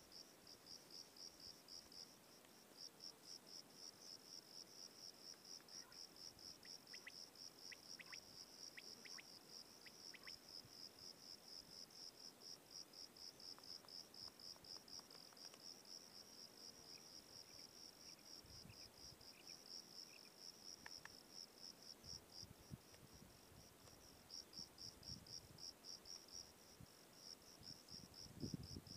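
Faint cricket chirping: a high-pitched train of rapid, even pulses that keeps on with only a few brief pauses.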